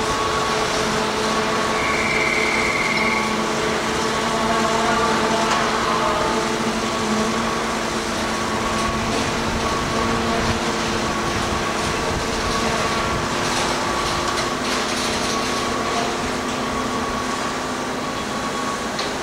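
Large mobile crane's engine running steadily during a lift: a constant mechanical hum with several held tones. A short, high steady beep sounds about two seconds in.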